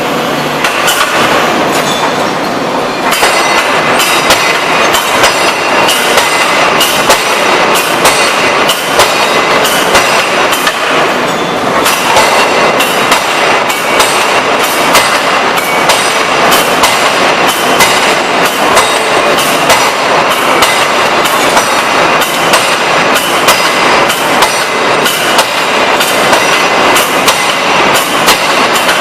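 3-ton hydraulic open die forging hammer striking a workpiece again and again in a steady run of heavy blows, over a continuous din of shop machinery.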